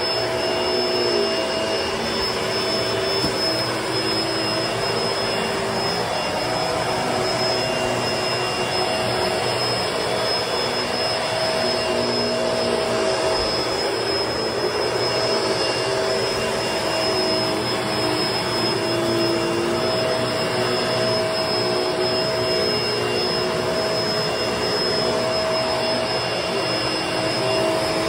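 Vacuum cleaner running steadily on carpet, with a high whine over the motor hum, its pitch shifting a little now and then.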